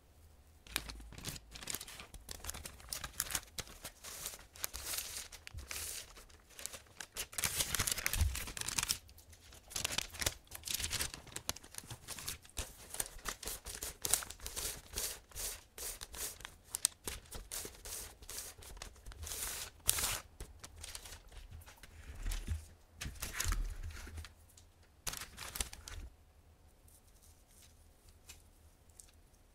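Baking paper rustling and crinkling in many short, irregular bursts as a meringue sheet is rolled up around its custard filling, stopping about 26 seconds in.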